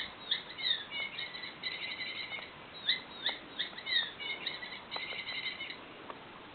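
Squeaking toy mouse giving two runs of high, quick chirps and trills like birdsong, with a short break near the middle, stopping about six seconds in. A few faint knocks under it.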